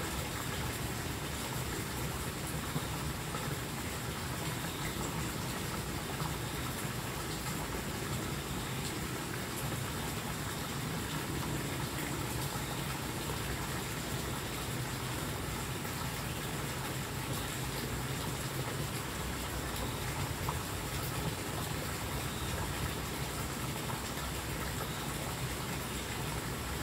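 Steady outdoor background noise: an even, rushing hiss like running water, with a thin constant high whine above it.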